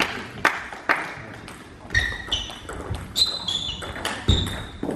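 Table tennis ball bounced on the table before a serve, clicking about twice a second, then a rally with sharp bat and ball clicks and short squeaks of shoes on the sports-hall floor. A heavy thump near the end is the loudest sound.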